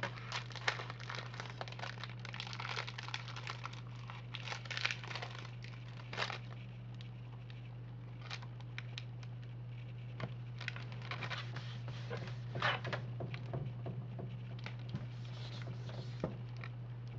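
Steady low hum under scattered soft rustling and crackling noises, with a few slightly louder crackles.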